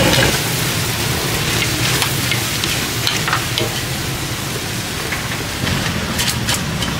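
Noodles sizzling as they are stir-fried in a large steel wok, with a few sharp clinks of the ladle and sticks against the pan.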